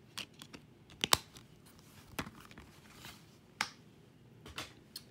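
Plastic Blu-ray case being handled: scattered clicks and taps, the loudest a sharp click about a second in.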